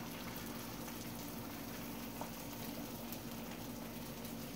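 Beaten egg cooking in butter in a non-stick skillet, sizzling faintly and steadily, over a low steady hum.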